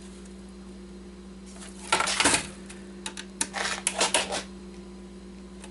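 Screwdriver and hard plastic keyboard case clicking and scraping while working at stubborn screws: a loud rattling scrape about two seconds in, then a run of sharp separate clicks.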